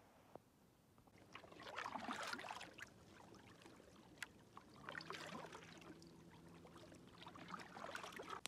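Canoe paddle strokes on calm water: a double-bladed paddle dipping and pulling, with water splashing and dripping off the blades, three strokes about three seconds apart.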